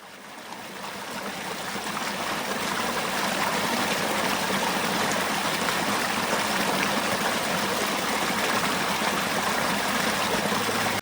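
Steady rushing noise of flowing water, fading in over the first couple of seconds and cutting off suddenly at the end.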